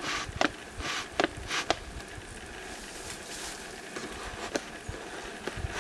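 A bee smoker's bellows pumped several times: short hissing puffs of air with sharp clicks, mostly in the first two seconds. The smoker is giving off little smoke.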